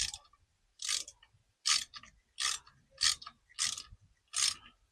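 Hand ratchet wrench clicking in repeated back-and-forth strokes, about seven strokes at a steady pace, as the handlebar clamp bolts are loosened.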